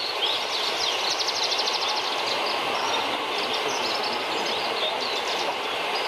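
Several Javan bush larks (branjangan) singing rapid trills and quick chirps over a steady background din.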